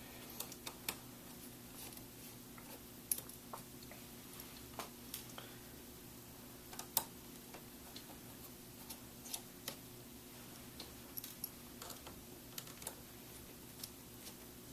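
Faint scattered clicks and ticks of a small screwdriver working the tiny mounting screws of a laptop LCD panel, over a faint steady hum.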